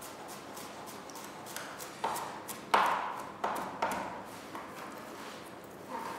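A handful of light knocks and taps of kitchen utensils, some with a brief ring, the loudest nearly three seconds in.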